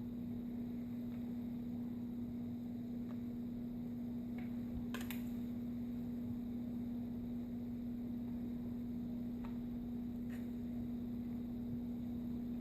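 A steady low hum with a few faint, short clicks spaced a few seconds apart, the loudest about five seconds in.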